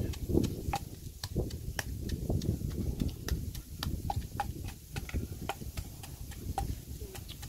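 A pestle knocking irregularly in a clay mortar, several knocks a second, over the low rumble of wind on the microphone.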